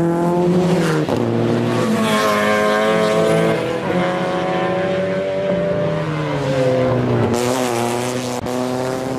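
Several race cars accelerating hard past, engines revving up through the gears: the engine note climbs, drops back at each shift and climbs again, over and over.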